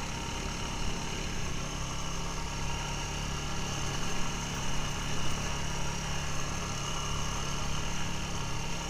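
Honda ATV engine running steadily under way on a dirt trail, an even drone that holds its pitch throughout.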